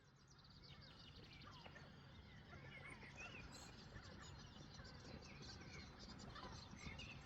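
Faint background noise with scattered distant bird chirps, irregular and short, fading in at the start.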